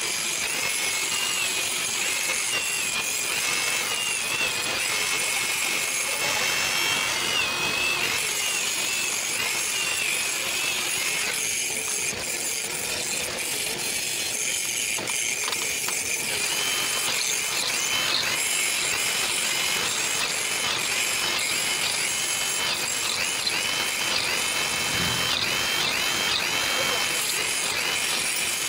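Electric drill in a drill stand boring through a steel flat bar, running together with an angle grinder cutting steel; a steady power-tool whine whose pitch wavers as the tools take load.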